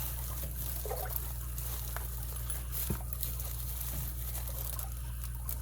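Faint rustling and small clicks of a package and its contents being handled, over a steady low hum.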